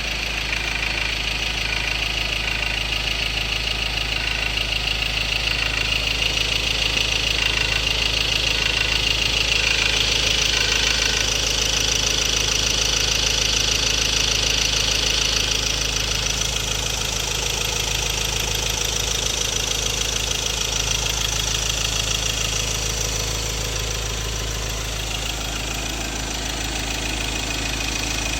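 Ford Ranger's 2.2-litre Duratorq four-cylinder turbodiesel running at idle with a steady knocking rattle, which the owner calls a fuel knock from a possible injector problem.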